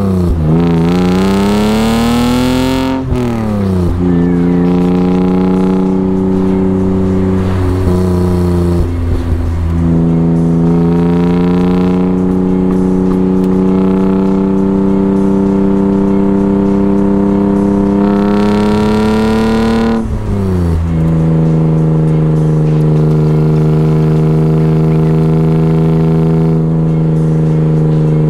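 1996 BMW E36 M3's straight-six engine under way: it revs up hard for about three seconds, drops in pitch at a gear change, pulls with slowly rising revs for a long stretch, then drops again at another shift about twenty seconds in and runs on steadily.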